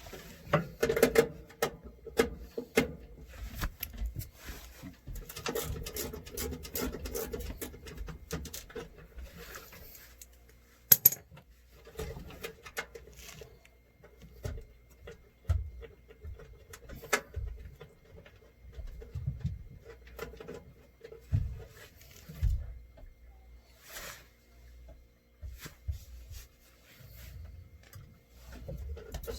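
Metal hand tools clinking and rattling in irregular clicks and knocks, with one sharp metallic click about eleven seconds in, over a faint steady hum.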